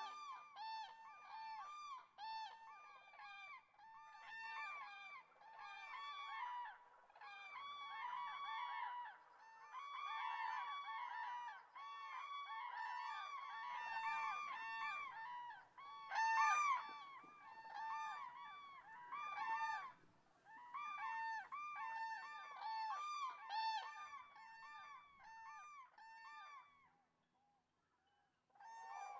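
A flock of common cranes calling, many overlapping loud calls, each a short note that rises and falls. The calling dies away briefly near the end.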